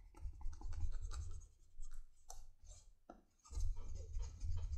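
Turned wooden edge burnisher rubbed along a leather holster's edge, coated with gum tragacanth, to polish it. Dry scratchy rubbing with a low rumble, in two spells with a short pause in the middle.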